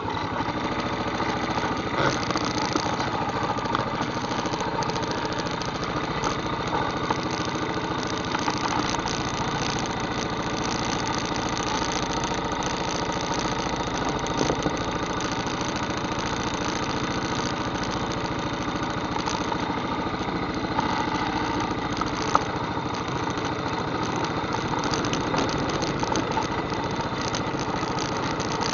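ATV engine running steadily at low speed, with a few brief knocks over the top.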